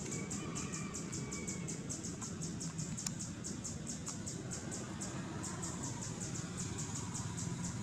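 Insects chirping in a fast, even pulse, about four to five high-pitched chirps a second, over a steady low rumble.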